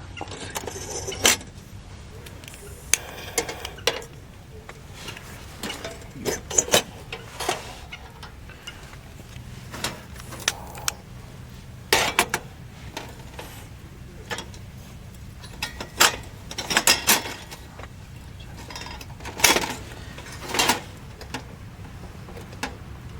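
Cooking gear being handled: scattered clinks and knocks of utensils, pans and dishes, a few at a time with pauses between, over a low steady background.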